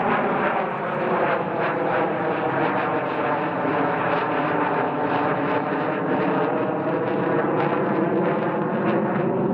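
Jet engine noise from the Mitsubishi X-2 Shinshin and a chase fighter passing overhead in formation: a steady rush with a set of engine tones that drift slowly in pitch.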